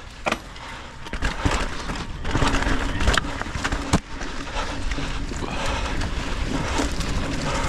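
Full-suspension mountain bike ridden down a rough dirt trail: steady rushing tyre and wind noise that grows louder over the first couple of seconds as it picks up speed, with several sharp knocks and rattles as the bike hits bumps and rocks.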